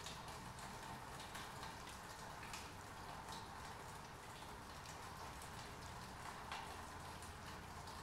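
Steady rain falling on a wet paved surface, with single drops splattering sharply here and there.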